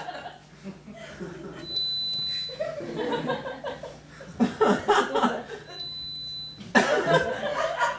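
Two hearing-test beeps, each a steady high tone about a second long, the second about four seconds after the first. Chuckling and laughter come in between and after them, and the laughter is the loudest sound.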